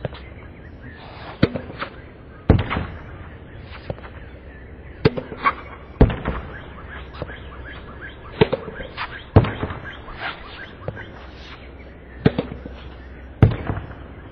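Tennis ball being hit against a practice backboard: sharp knocks of racket strikes and the ball hitting the wall, coming in pairs about a second apart every three to four seconds, with fainter bounces on the hard court between them.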